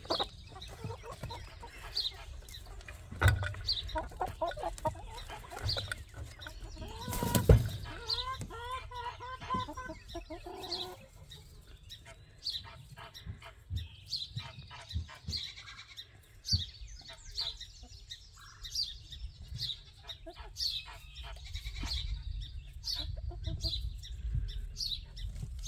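Chickens clucking, with many short falling peeps all through and a quick run of repeated clucks about eight seconds in. Two thumps break in, the louder one about seven seconds in.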